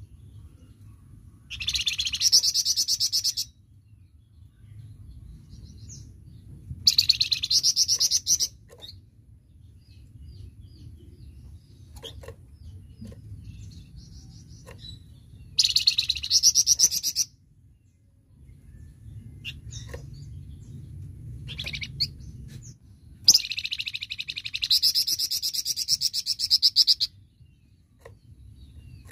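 A caged flamboyan songbird sings four loud, fast, high-pitched rattling bursts. These are its 'tembakan' (shooting) song. The bursts come about 1.5, 7, 16 and 23 seconds in, and the last is the longest at about four seconds. Softer chirps fall between them over a low hum.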